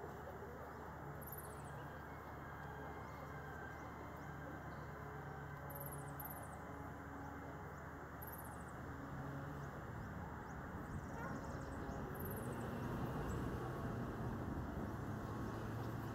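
Steady, low outdoor background noise, with a small bird's short, very high-pitched chirping trills about five times.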